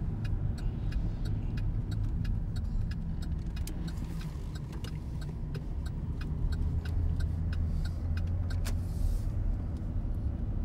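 Road noise inside a moving car: a steady low rumble of tyres and engine, with a light, regular ticking about three times a second.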